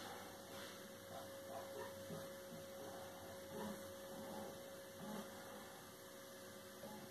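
Faint steady electrical hum, one even tone, with a few faint soft sounds scattered over the first few seconds.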